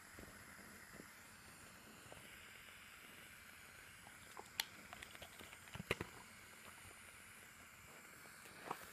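Near silence with a faint hiss, broken a little past the middle by a handful of short clicks and rustles, the two loudest about a second apart, with one more near the end, as a large dog shifts its body right against the microphone.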